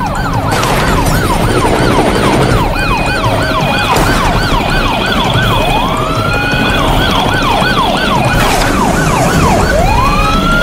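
Electronic police siren from a toy police car, in a fast yelp of quick falling sweeps, about three a second. Twice it switches to a slow rising wail, about halfway through and near the end.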